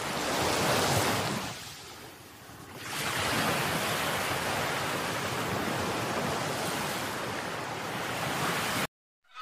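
A rushing noise effect that swells in the first second, dips about two seconds in, rises again near three seconds and holds steady, then cuts off suddenly near the end.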